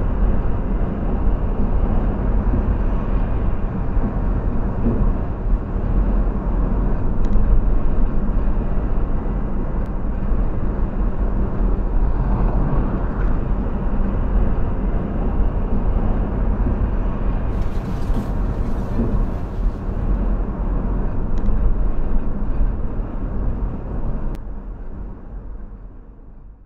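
Steady road and engine noise of a car cruising at highway speed, heard from inside the cabin as a low rumble; it fades out near the end.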